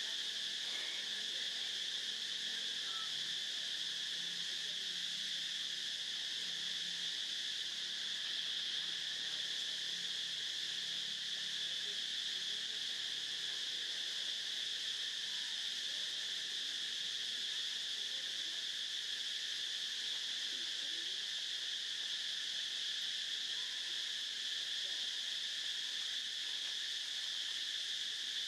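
Steady chorus of insects such as crickets or cicadas: a continuous high-pitched drone that holds one level without a break.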